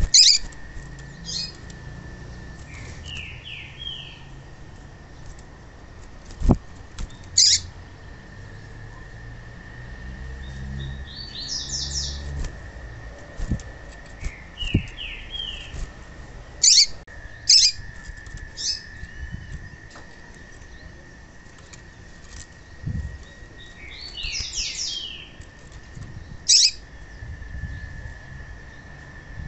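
Female papa-capim (yellow-bellied seedeater) calls: sharp high chips and short runs of three or four quick descending notes, every few seconds, with brief wing flutters from a caged bird. A faint steady high whine runs underneath.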